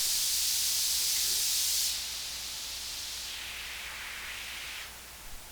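Cooper CS-208 portable mixer's own hiss, heard with no mic plugged in and the gain, volume and EQ turned up: a bright, steady hiss that comes on suddenly. It drops in level about two seconds in and again near the end. This is the mixer's noise floor at maximum gain.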